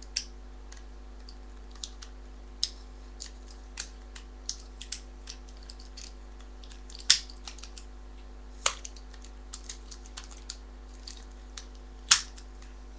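Irregular small clicks and crackles of plastic packaging being handled and peeled apart to free an Apple Magic Mouse stuck in its box. There are louder snaps about seven, nine and twelve seconds in.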